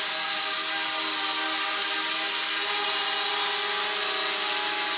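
Eachine E55 mini folding quadcopter in flight, its small motors and propellers giving a steady buzzing whine whose pitch wavers slightly.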